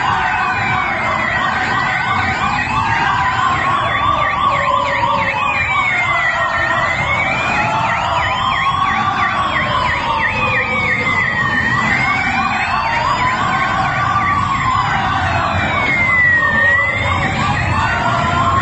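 Police escort sirens sounding together, one in a slow wail that rises and falls about every five seconds and another in a fast yelp several times a second.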